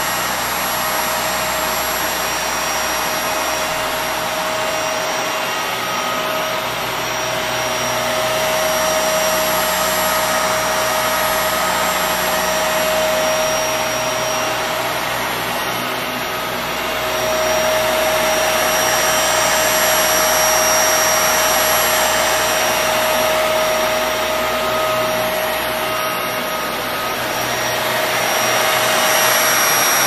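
Kenmore Intuition bagless upright vacuum cleaner (Panasonic-built cyclonic model) running on carpet: a steady motor and airflow noise with a high whine. Its level swells and eases slowly as it is pushed about.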